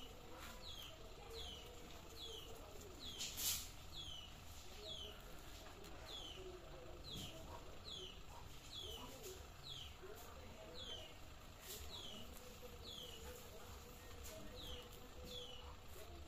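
A small bird repeating one short, high chirp that falls in pitch, about every three-quarters of a second, with a single sharp knock about three and a half seconds in.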